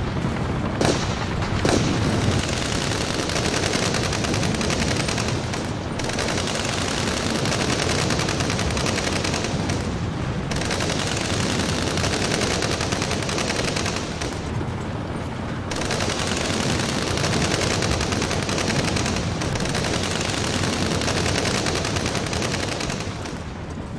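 Sustained rapid automatic rifle fire, several assault rifles shooting at once in a continuous firefight, with two louder single cracks about a second and two seconds in. The firing eases off slightly near the end.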